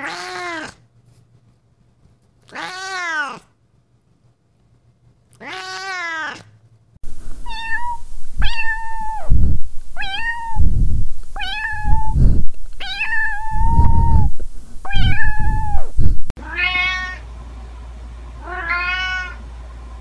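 Domestic cats meowing in a string of spliced recordings. First come three single meows a couple of seconds apart, then a louder run of about eight short, quick meows with thumps beneath, then two more meows over a steady hum.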